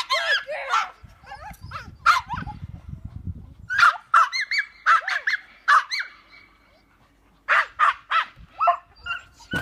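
A small dog barking in runs of quick, high-pitched barks, with a quiet pause of about a second and a half before a last run near the end.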